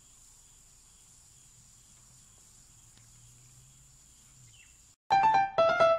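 A faint, steady, high-pitched insect drone, cut off about five seconds in by two loud musical notes, the second lower than the first.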